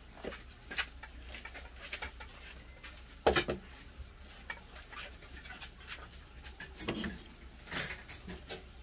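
Stainless-steel bowls and dishes clinking and being set down on a wooden table, a scatter of short knocks with the loudest about three seconds in.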